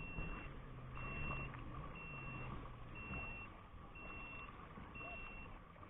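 Electronic beeping: one steady high tone repeating about once a second, each beep about half a second long, over a low muffled hum.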